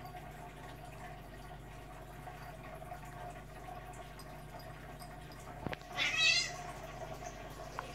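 A cat gives one brief, high-pitched, wavering cry about six seconds in, lasting about half a second, while two cats play-fight. A single small knock comes just before it, over a steady faint hum.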